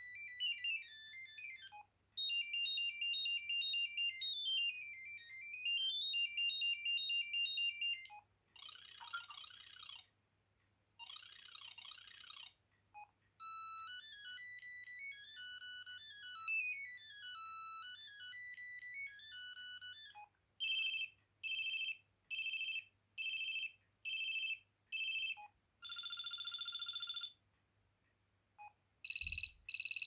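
Sendo S330 mobile phone playing its built-in ringtones one after another through its small loudspeaker: short electronic tunes, then trilling and evenly pulsed ring-type tones in the second half. Each preview stops with a short beep as the next tone in the list is selected.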